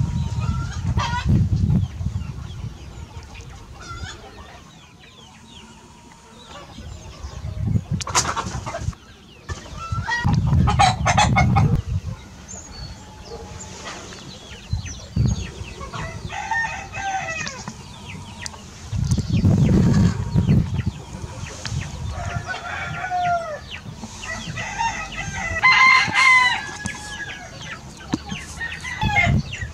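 Young Oryol chickens clucking and calling, with a longer crowing call near the end. Bursts of low rumble come in between.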